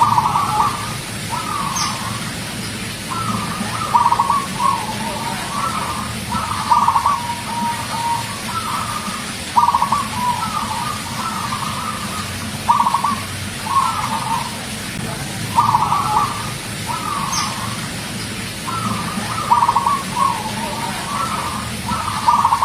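Zebra dove (perkutut) cooing over and over: a run of short, rolling, stuttering coos at much the same pitch, some phrases ending in a drawn-out note, with brief pauses between them. A steady low hum lies underneath.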